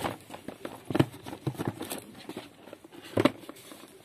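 Cardboard product boxes being handled and shifted inside a larger carton: a few scattered knocks and rustles, the loudest about a second in and again just after three seconds.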